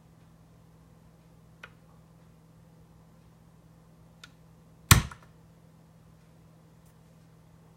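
QRK 12C turntable: a steady low hum, with two light clicks and, about five seconds in, one sharp loud clunk followed by a few quick rattling clicks.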